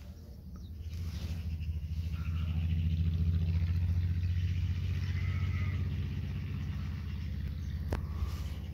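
A motor vehicle driving past, its low engine hum swelling to a peak about three seconds in and then slowly fading. There is a single sharp click near the end.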